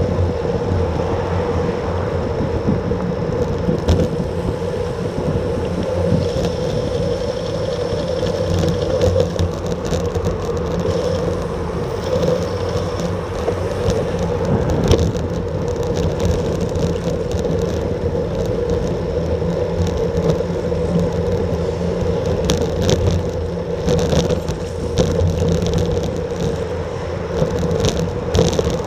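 Road bicycle rolling at about 30 km/h, heard through a bike-mounted action camera: a steady whir of tyres and drivetrain with rushing road and wind noise. Occasional clicks and rattles come from bumps in the road, more often near the end.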